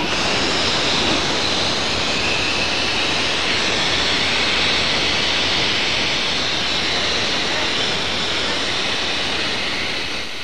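Steady hiss of steam escaping from a narrow-gauge steam locomotive. It starts abruptly and eases off slightly near the end.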